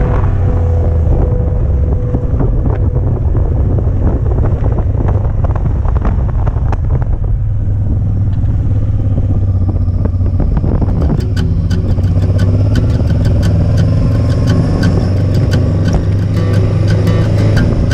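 Honda Transalp 700's V-twin engine running under way, heard from the rider's helmet camera with road and wind noise. Sharp clicks scatter through the second half.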